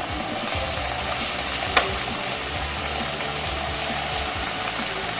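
Wheat-flour pathiri dough deep-frying in hot coconut oil, a steady sizzle, with a single sharp click a little under two seconds in.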